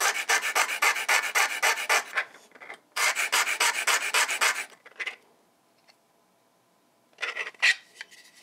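Flat graver, held at a set angle in a geometry block, rubbed back and forth across a diamond sharpening disk. It makes a rapid scratchy rasping in two runs of about two seconds each, grinding a 60-degree face on the graver.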